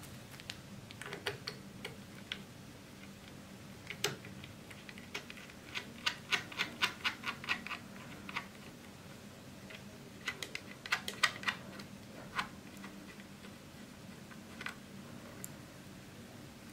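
Small plastic clicks and ticks as the PoleMaster camera's USB cable and plug are handled and pushed into the camera's socket. There is a quick run of about eight clicks around six seconds in, another cluster around ten to eleven seconds in, and scattered single clicks between.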